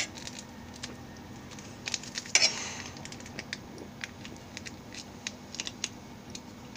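Scattered light clicks and taps of small kitchen handling near a mixing bowl, with a short rustling burst about two and a half seconds in.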